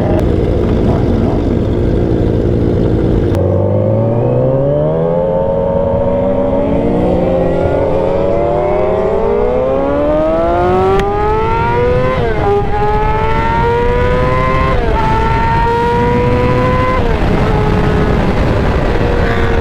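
Yamaha R6's inline-four engine accelerating hard: a long climb in revs, then three quick upshifts about 12, 15 and 17 seconds in, each a sudden drop in pitch followed by another rise, before settling at a steady speed. Wind rush runs underneath.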